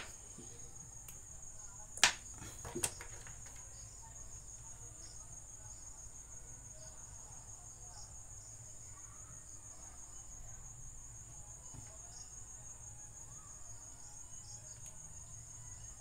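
Crickets chirping steadily in a continuous high trill over a low hum, with two sharp clicks about two and three seconds in.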